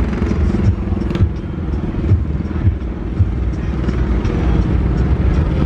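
Steady low engine rumble from a motor vehicle running nearby, with a regular low thud about twice a second.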